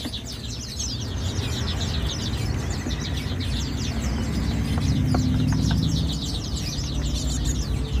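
A crate full of cinereous tits (gelatik batu) chirping all at once: a dense, unbroken chatter of short high chirps over a low rumble.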